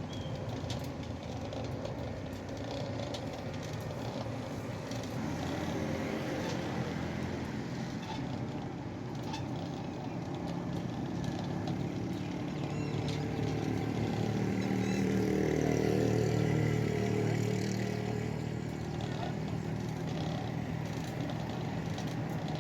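A motor or engine running with a steady hum that swells louder about two-thirds of the way through, then eases off.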